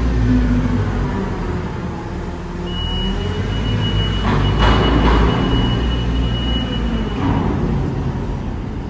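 Diesel engines of Liebherr telehandlers running and working under load, with a steady high tone from about three seconds in until about seven seconds, and a brief rush of hissing noise about halfway through.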